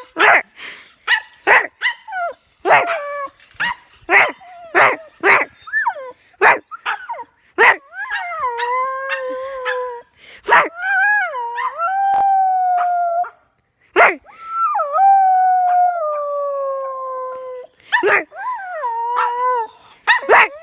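A dog barks rapidly, about two barks a second, for several seconds. It then howls in long drawn-out notes of two to three seconds each, falling slightly in pitch, with a single bark before each howl.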